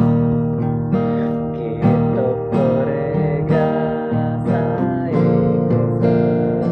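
Acoustic guitar played by strumming chords, a fresh strum roughly every second.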